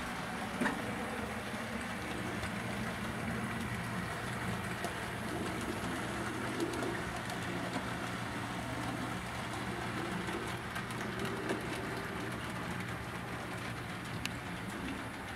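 HO scale model train running on the layout's track: a steady hum and rattle of the locomotive and freight cars rolling over the rails, with a few sharp clicks.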